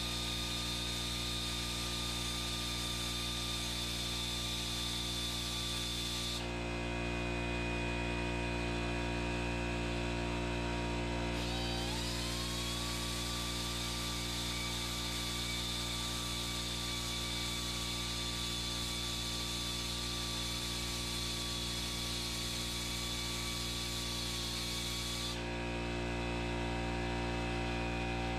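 Pneumatic right-angle die grinder blending the valve bowls of a Big Block Chevy cast-iron cylinder head: a high steady whine that stops about six seconds in, spins back up with a rising whine about eleven seconds in, and stops again near the end. A steady low hum from the air compressor runs underneath.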